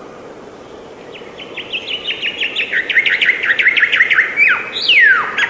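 A songbird singing a fast trill of short repeated chirps, about seven a second, that grows louder. It ends in a couple of loud downward-slurred notes.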